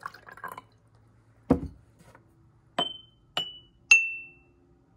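Water pouring briefly into a small glass jar, then a dull thump. Three glass jars holding different amounts of water are then struck one after another with a wooden mallet, each giving a short, clear ringing note; the notes fall in pitch, and the last is the lowest and loudest. The water level in each jar sets its note.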